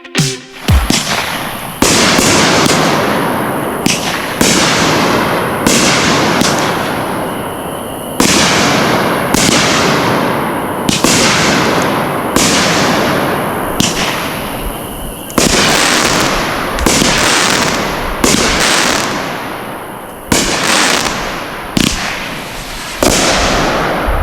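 TNT Fireworks' Master Of Explosion firework firing shot after shot, a loud bang every one to two seconds, each fading out in a noisy tail.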